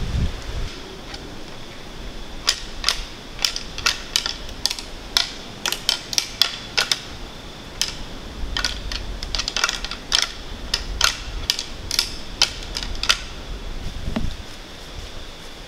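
A pair of deer antlers clacked and ground together in an irregular string of sharp clicks: antler rattling, a hunter's imitation of two bucks sparring. It starts a couple of seconds in and stops shortly before the end.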